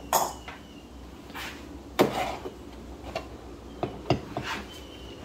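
Metal-and-wood knocks and clacks as a metal bracket and wooden parts are worked loose by hand from the wooden housing of a 1940 Meadows grist mill, with short scrapes between them. The sharpest knock comes about two seconds in, and a quick run of lighter taps follows near the end.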